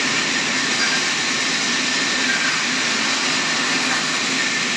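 Log band sawmill running: a steady, even whirring noise with no strokes or breaks.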